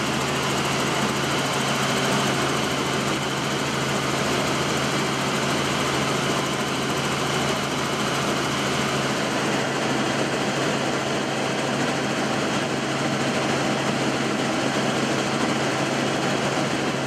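Helicopter in flight heard from inside the cabin: steady engine and rotor noise with a constant low hum.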